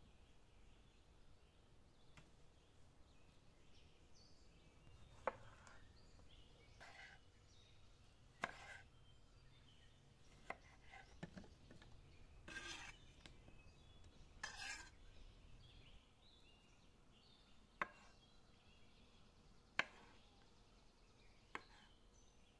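Quiet food-preparation sounds: occasional sharp clicks and knocks of a kitchen knife and a ceramic platter against a stone countertop, spaced a few seconds apart. There are two short rustles near the middle as salad vegetables are handled. The clicks near the end come as a knife slices pickles on the countertop.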